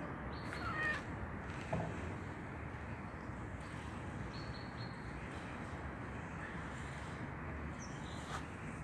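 Steady outdoor background noise with a few short bird calls.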